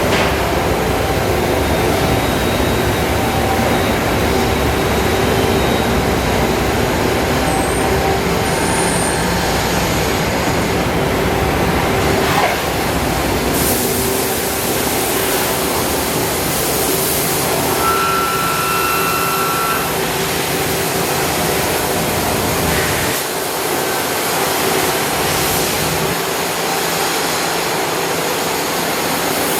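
Nakamura NTY3-100 CNC turret lathe running under power: a steady mechanical hum with a held tone. A brighter hiss joins about a third of the way in, and a short whistling tone sounds about two-thirds through.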